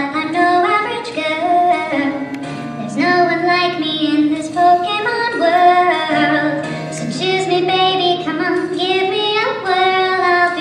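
A song with a high female voice singing a melody of held notes over musical accompaniment.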